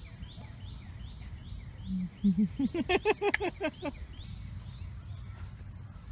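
A puppy giving a quick run of short pitched yips and whines, rising in pitch, from about two to four seconds in, over a bird's steady repeated high chirps.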